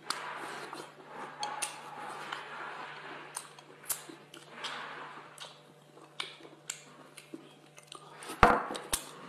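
Close-up mouth sounds of a person eating spicy cooked scallop meat: irregular wet chewing, smacking and clicks, with a louder knock near the end.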